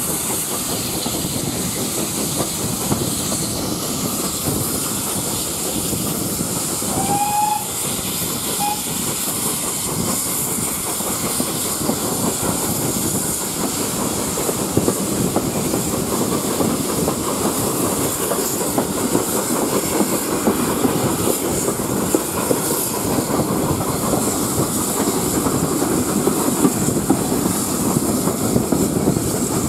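Steam-hauled passenger train heard from a coach window: the coaches' wheels running steadily on the rails, with the hiss of steam from the GWR locomotives at the head of the train.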